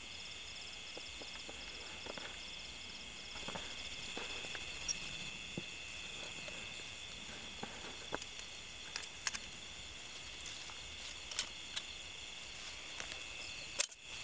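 Steady high chirping of night insects such as crickets, with a pulsing chirp in the first few seconds. Scattered light clicks and rustles come from a metal spring rat trap being handled in dry grass, and one sharp click near the end is the loudest sound.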